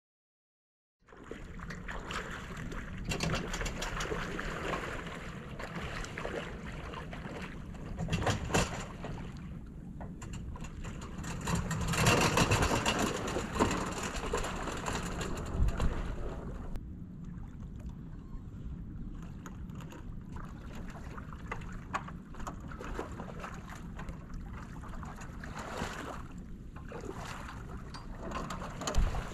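About a second of silence, then steady wind noise on the microphone with shallow water splashing as a person wades around a personal watercraft on its trailer, with a few short louder splashes and knocks and a louder stretch in the middle.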